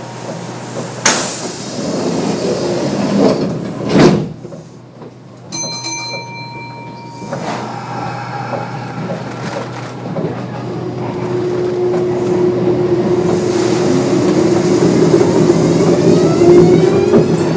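Kintetsu 9200 series electric train with field-chopper control pulling out: the doors shut with two knocks about one and four seconds in, and a steady electronic tone cuts off suddenly. From about ten seconds in a steady motor hum starts and rising whines build, growing louder as the train accelerates away.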